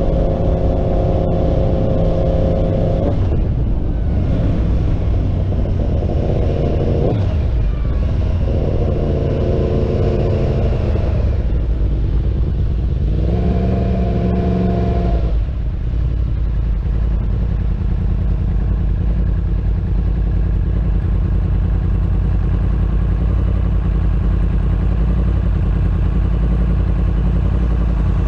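Yamaha R1 inline-four motorcycle engine breathing through a Graves aftermarket exhaust, accelerating in several short pulls whose pitch climbs and breaks off between gear changes. Past the halfway point it settles into a steady low idle.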